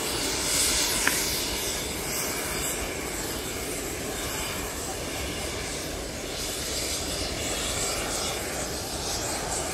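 Steam locomotive hauling a train of coaches, a steady rumbling noise with no clear beat. A short click about a second in.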